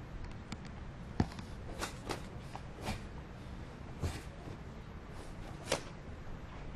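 Karate gi snapping sharply with the strikes of a kata, about six short cracks spread over the few seconds, the loudest one just over a second in and another near the end, over a steady low background noise.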